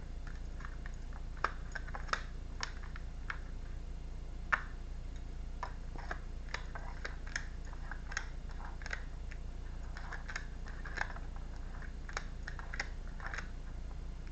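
Tarot cards being shuffled and handled: irregular small snaps and taps of the cards, over a steady low hum.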